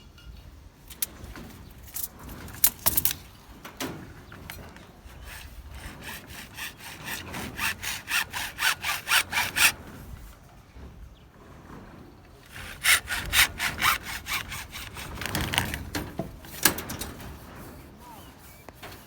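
Hand sawing: two runs of quick back-and-forth saw strokes, about four to five a second, with a few sharp knocks in between.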